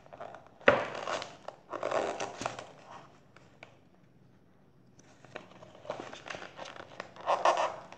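Paper rustling and handling noise from a paperback picture book being leafed through and moved right at the microphone. There is a sharp knock under a second in and a quiet spell about halfway.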